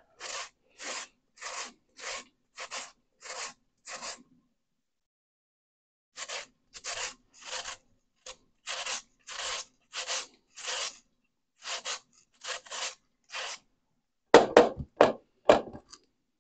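Raw russet potato rubbed down a hand grater in steady scraping strokes, a little under two a second, with a pause of about two seconds early on. A few louder knocks come near the end.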